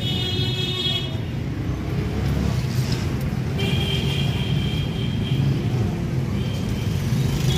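Busy street traffic: motorcycle and vehicle engines running, a steady low rumble, with brief high steady tones in the first second and again around the middle.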